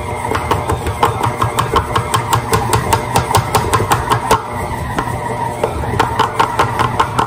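KitchenAid stand mixer running steadily with its flat paddle beating butter and flour, with a rapid regular clicking, about five a second.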